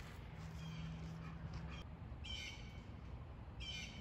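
A bird calling twice, two short calls about a second and a half apart, over a faint low hum that stops before the calls.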